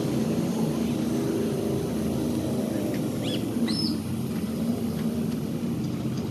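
Steady low engine drone of vehicles running, with a few short bird chirps a little past the middle.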